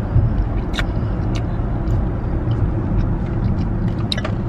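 Steady low rumble of a car's road and engine noise heard inside the cabin, with a few faint clicks of chewing as a protein pastry is eaten.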